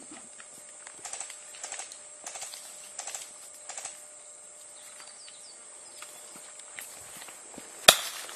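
Footsteps crunching on a dirt track, a steady walking pace of about three steps every two seconds for the first few seconds. Near the end comes a single sharp crack, the loudest sound.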